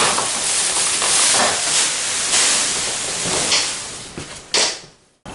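Thin plastic wrapping sheet rustling and crinkling as it is pulled off a washing machine and bundled up. It fades off about four seconds in, gives one last short rustle, then cuts off suddenly.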